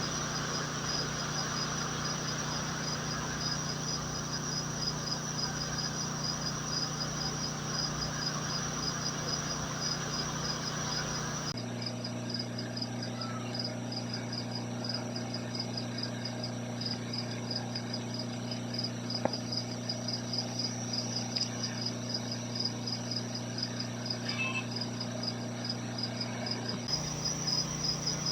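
Insects chirping in a rapid, even, high-pitched rhythm several times a second, over a steady low hum that shifts in pitch about 11 seconds in and again near the end.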